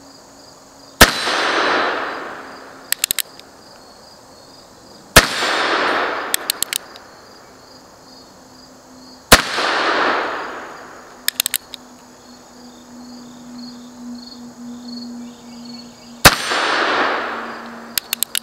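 Ruger Single-Six single-action revolver firing .22 Magnum: three shots about four seconds apart, then a fourth after a longer pause, each sharp crack followed by about a second of echo. After each shot comes a quick run of three or four small clicks as the hammer is thumb-cocked for the next shot. Crickets chirp steadily underneath.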